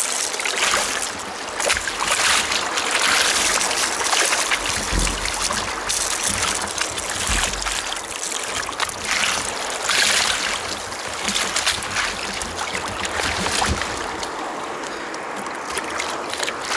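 Sea water splashing and sloshing against the side of a kayak in uneven surges as a hooked bonito is brought alongside and lifted out. There are a couple of dull knocks about five and seven seconds in.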